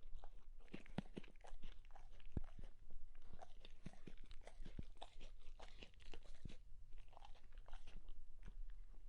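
Dog chewing, a rapid irregular run of wet crunches and clicks of teeth.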